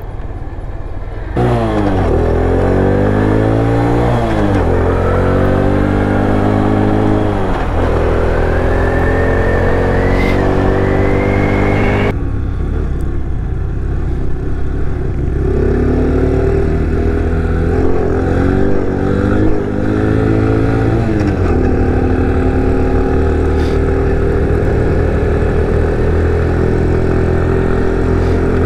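The single-cylinder 125cc engine of an X-Pro Vader (a Honda Grom clone) motorcycle revving under hard acceleration. Its pitch climbs and drops back several times as it is shifted up through the gears, then holds steadier at cruising speed near the end.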